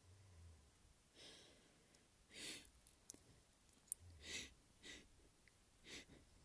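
A person taking about five short, faint, breathy breaths through the nose and mouth, the build-up before an induced sneeze. A single small click comes about four seconds in.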